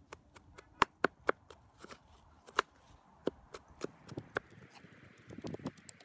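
Heavy cleaver chopping ground meat and onion on a wooden cutting board, mincing it by hand for kebab: a run of irregular sharp knocks, a few a second, some much louder than others.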